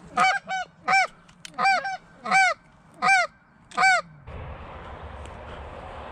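Goose honking: about seven loud, separate honks in quick succession over the first four seconds. After that the honks stop and a steady rushing noise starts suddenly.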